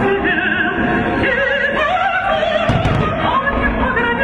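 Music with a singing voice held in wide vibrato, operatic in style.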